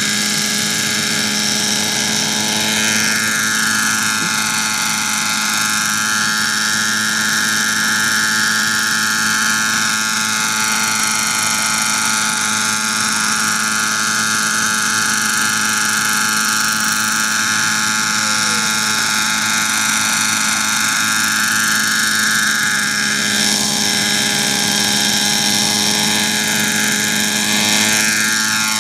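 Radio-controlled model helicopter with a smoking glow-fuel (nitro) engine hovering: a steady high engine-and-rotor whine whose pitch drifts gently up and down as the pilot works the throttle and collective.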